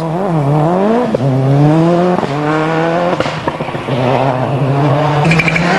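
Subaru Impreza WRC rally car's turbocharged flat-four engine accelerating hard: the revs climb and fall back at each upshift, three times, then hold fairly steady.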